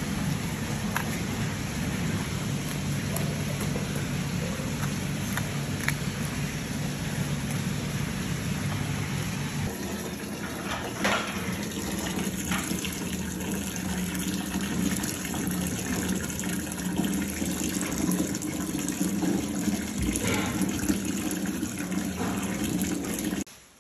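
Steady rush of running water, like a tap left running, over a low hum, with a few light clicks on top.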